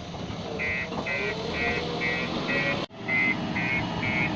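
Diesel engine of a backhoe loader or tipper running, its pitch rising and falling, with a reversing alarm beeping about twice a second from about half a second in.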